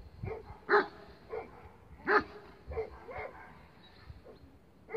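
Central Asian shepherd dog barking: about six single barks, unevenly spaced, the two loudest about a second in and about two seconds in.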